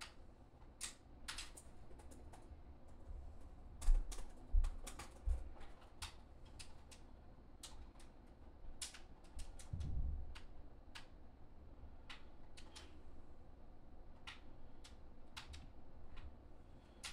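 Scattered sharp clicks and taps at an irregular pace, with three low thumps between about four and five and a half seconds in and another about ten seconds in.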